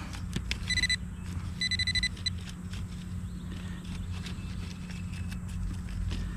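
Metal detector beeping in two short bursts of rapid high pulses, about a second in and again near two seconds, sounding on the buried metal target. Faint clicks and scrapes of digging in soil around them.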